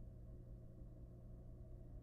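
Near silence: a steady low hum with faint background noise, and no distinct event.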